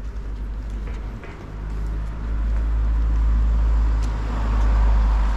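A car driving along the street: a low engine rumble that swells from about a second and a half in, with tyre noise rising near the end.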